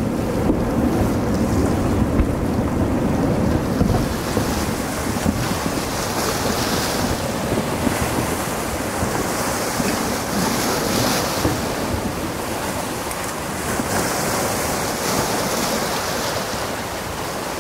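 Batu Tara's strombolian eruption: a loud, steady rushing roar with a low rumble and scattered sharp cracks as red-hot volcanic bombs fall and tumble down the slopes.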